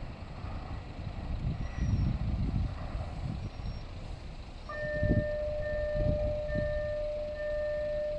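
Road traffic and wind rumbling at a railway level crossing. Then, about four and a half seconds in, the crossing's warning signal starts: a steady electronic ringing tone whose higher overtones pulse on and off, warning that a train is approaching.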